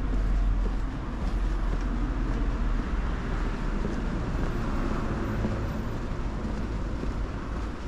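Street traffic: vehicles passing, with a steady low rumble and tyre noise that swells briefly in the middle.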